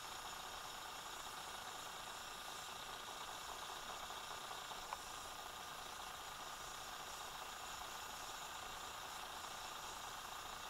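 Faint steady hiss, like the background noise of an old recording, with one brief click about five seconds in.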